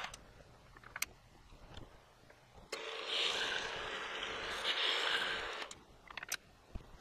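Milling machine running for about three seconds in the middle, starting and stopping abruptly. Before and after it are quiet stretches with a few light metallic clicks from the steel collet block and workpiece being handled in the vise.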